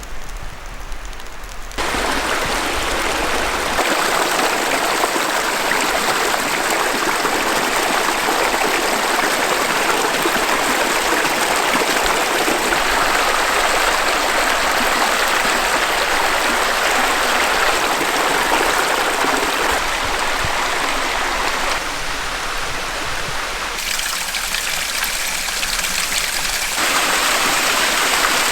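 Rushing brook at a small waterfall: a steady, loud rush of water. It is quieter for the first couple of seconds, then jumps up, and its level shifts abruptly a few more times.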